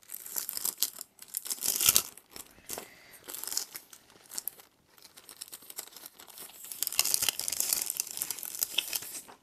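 Paper rustling and crinkling in irregular bursts as printed sheets and leaflets are handled and unfolded, busiest around two seconds in and again over the last couple of seconds.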